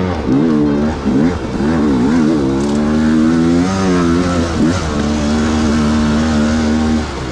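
Dirt bike engine revving up and down in quick throttle blips while riding a trail section, then holding a fairly steady note for about two seconds before easing off near the end.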